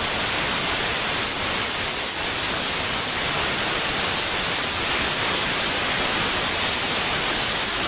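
Loud, even hiss of static-like noise at a constant level, cutting off abruptly at the end.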